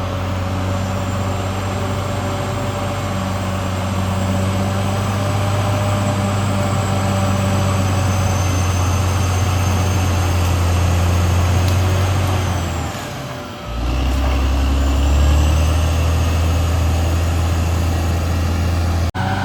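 Caterpillar D6R XL bulldozer's diesel engine running steadily at work, with a deep, even drone. The engine sound dips briefly about two-thirds through, then picks back up.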